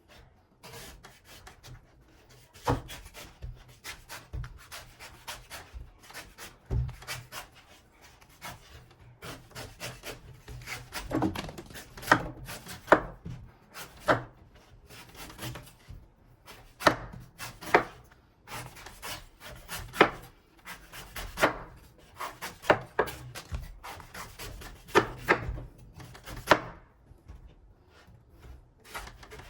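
A blade chopping into palmyra palm fruits (ice apples), a long series of sharp, irregularly spaced strikes with softer scraping and rubbing of the fibrous husk between them.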